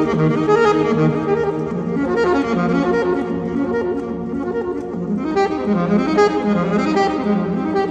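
Background music: a jazz piece with a saxophone lead over a bass line that moves up and down.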